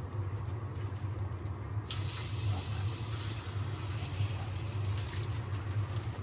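Food sizzling on a hot camp griddle, a hiss that starts suddenly about two seconds in and carries on, over a steady low hum.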